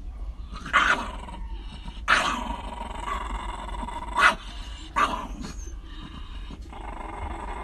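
Two Shiba Inus snarling and growling at each other, with four sharp, loud barks about a second, two, four and five seconds in.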